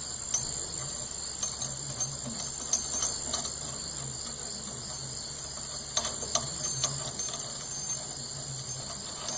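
Scattered light metallic clicks and clinks of tractor lift-arm parts being handled and fitted, over a steady high-pitched background hiss.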